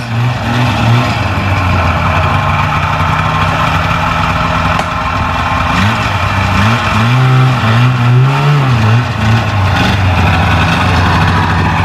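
1995 Polaris Indy Trail 500 snowmobile's two-stroke engine running at low speed, with the revs rising and falling about six to nine seconds in.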